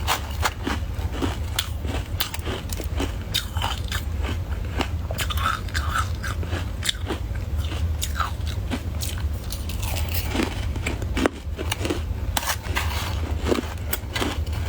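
A person biting and chewing soft white shaved ice, giving a continuous run of irregular crisp crunches.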